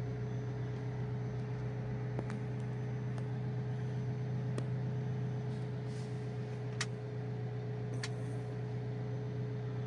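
Alfa Romeo 4C's 1750 turbocharged four-cylinder idling with a steady low hum, heard from inside the cabin. Four light clicks from the dashboard switches and the climate-control knob sound over it.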